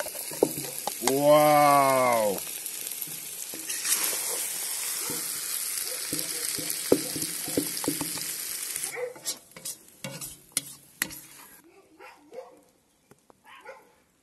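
Fried lagman (noodles, pork and egg) sizzling in a kazan over a wood fire while a metal ladle scrapes and clinks, scooping it out. The sizzle stops suddenly about nine seconds in, leaving a few sharp clinks and knocks.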